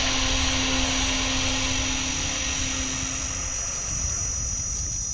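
Crickets trilling steadily over a broad hiss that thins out after about three seconds, with a low steady hum that stops about three and a half seconds in.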